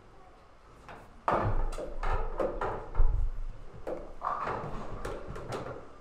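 Billiard balls clacking and rattling against each other as they are gathered from a pool table's ball return, with a few heavier knocks among the clicks.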